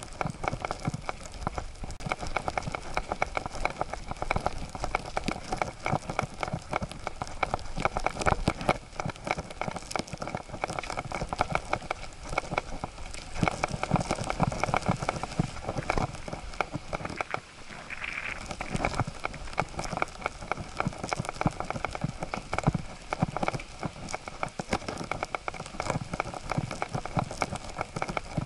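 Continuous rapid rattling and pattering from a camera strapped to a walking Siberian husky's harness, the mount jostled with every stride and paws stepping on a dirt forest path.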